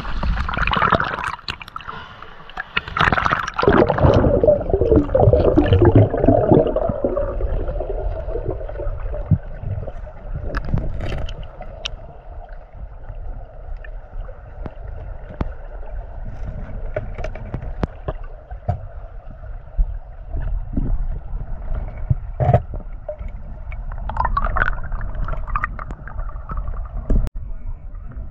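River water gurgling and rushing around a spearfisher swimming down with the current. It is louder and more turbulent for the first several seconds, then settles into a steadier wash with scattered small clicks.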